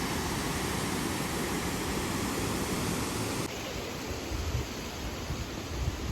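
Multnomah Falls: a steady rushing roar of falling water, an even hiss with no distinct events. About three and a half seconds in, it drops slightly and loses its highest hiss.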